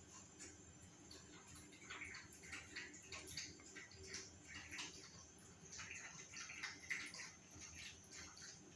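Faint scuffling with scattered light clicks, a Spitz puppy and a cat playing together.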